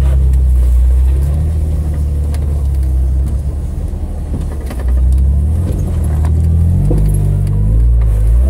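Jeep's engine running at low revs under load while rock-crawling, its pitch rising and falling slightly, with a few light clicks and rattles.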